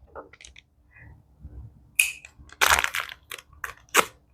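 Crinkling and crackling of a ration's orange beverage powder packet being handled and opened, in a few separate sharp bursts, the loudest about two seconds in and again near the end.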